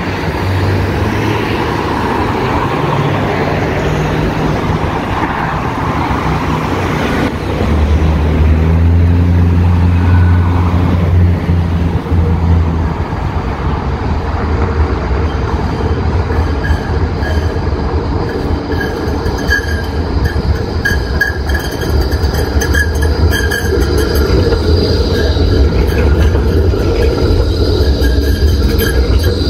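Melbourne E-class low-floor electric trams running along the track toward and past, with a steady low motor hum and wheel-on-rail noise. A steady high whine joins in over the second half as one draws close and passes.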